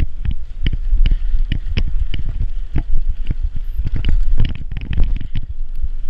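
Bicycle ride over rough dirt: a steady low rumble of wind and handling noise on the microphone, with many sharp, irregular knocks and rattles from the bumps.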